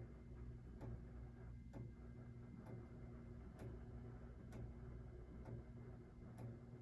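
Hampton Bay Antigua Plus ceiling fan running, its motor giving a faint steady low hum, with a light tick about once a second.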